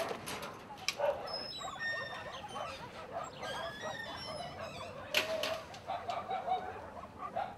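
A chorus of many kennelled dogs barking and yelping, with short high-pitched chirps over it in the first half and a couple of sharp knocks, one about a second in and one about five seconds in.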